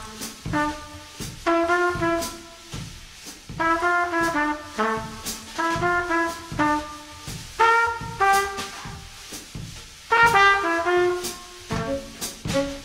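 Improvised jazz: a trumpet plays short phrases of quick notes, broken by pauses, over scattered drum and cymbal hits.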